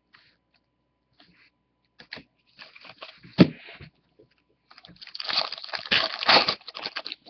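Hands tearing open and crinkling a foil pack of baseball trading cards, with a sharp snap about three and a half seconds in and a denser run of crinkling from about five to seven seconds.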